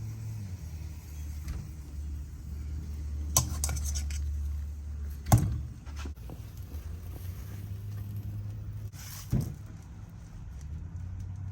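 Metal skewers of tandoori chicken wings knocking and clinking a few times as they are taken out of a tandoor, the loudest knock about halfway through, over a steady low hum.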